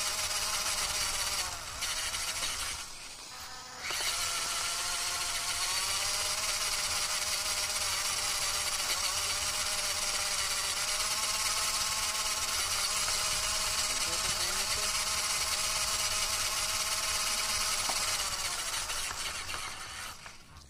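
Electric motor and gear train of a scale RC crawler car whining steadily as it drives. The whine drops off briefly twice in the first few seconds and dies away near the end.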